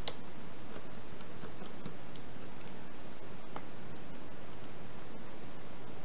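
A few light, sharp clicks of a small screwdriver working screws out of the plastic front of a Bluetooth speaker, over a steady hiss.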